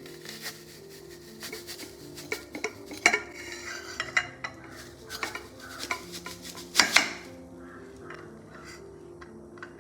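Kitchen utensils clinking and scraping against dishes and pots: a run of sharp clinks, loudest about three seconds in and again near seven seconds, which then die away. Soft background music with held notes plays underneath.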